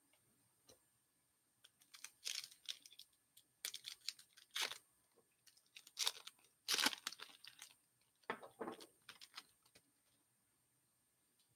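Foil trading-card pack wrapper being torn open and crinkled by hand, in a series of crackly bursts from about two seconds in until near the end.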